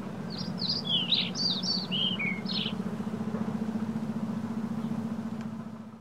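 A car engine runs with a steady hum while a small bird chirps a quick run of about a dozen short notes in the first half. The sound fades out at the end.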